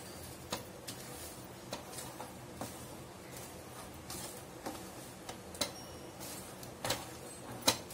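Wooden spatula stirring dry spice powders and garlic cloves in a steel bowl: irregular light knocks of wood on steel over a soft scraping rustle, the loudest knock near the end.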